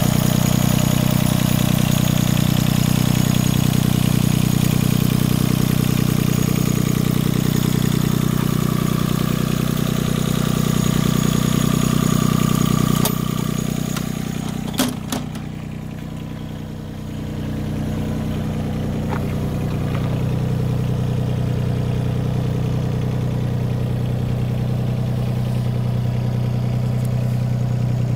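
Yanmar SV15 mini excavator's three-cylinder diesel engine idling steadily, heard close up at the open engine bay. About halfway through it grows quieter for a few seconds, with a single sharp click, then comes back up.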